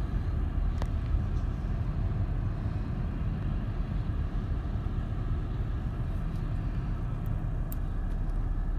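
Steady low rumble of car road and engine noise heard from inside the cabin, with a few faint clicks.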